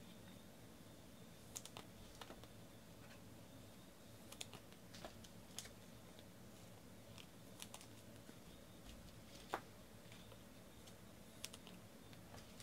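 Near silence broken by faint, irregular light clicks and taps from hands at work on a tabletop, about a dozen in all, the sharpest about three-quarters of the way through.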